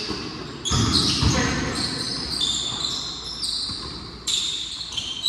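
Basketball game play: a basketball bouncing on the court and sneakers squeaking in short high tones, with players' voices.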